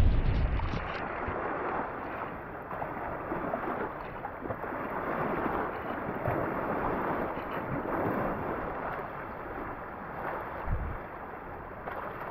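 Hurricane storm-surge floodwater rushing and sloshing across the ground, with a short gust of wind on the microphone near the end.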